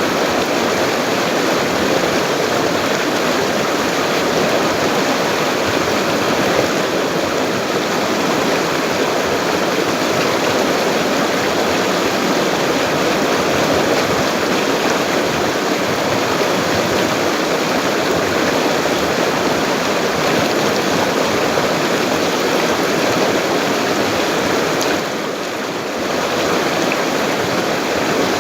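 High-flowing river rushing steadily: a dense, even wash of water noise that dips briefly near the end.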